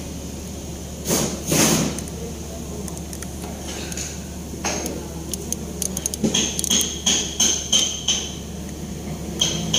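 Hand tools striking and clinking on metal during engine installation work: about ten sharp ringing taps in quick succession about six seconds in, after two short hissing bursts near the start, over a steady low hum.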